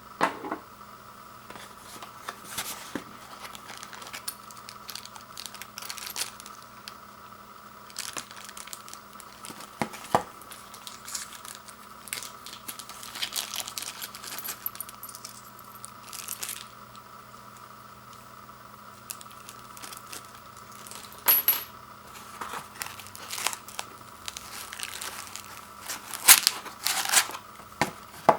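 Packaging of a wireless doorbell kit being handled: plastic and cardboard rustling and crinkling, with scattered sharp clicks and knocks of small hard parts, over a faint steady hum. The loudest clicks come about two-thirds of the way in and near the end.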